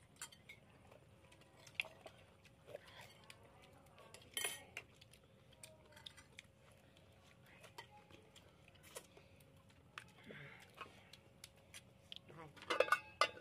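Metal spoons clinking and scraping against ceramic plates and bowls as people eat, in scattered clicks with a louder clatter about four seconds in and another burst near the end.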